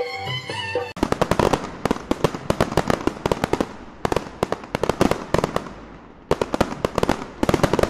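Folk music with a fiddle cuts off about a second in, giving way to a rapid, irregular series of loud sharp cracks and pops that eases briefly around six seconds in and then picks up again.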